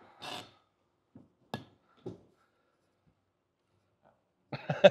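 A short rustle just after the start, a sharp click about a second and a half in and a soft thump half a second later, then quiet until a man starts speaking near the end.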